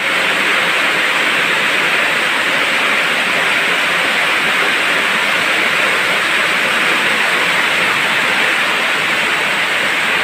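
Heavy rain falling, a loud, steady hiss that does not let up.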